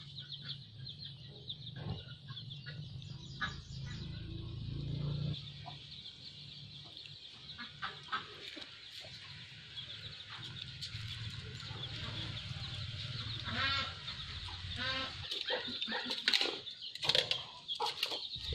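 Chickens clucking over a steady high-pitched buzz, with a couple of louder rising calls about three-quarters of the way through.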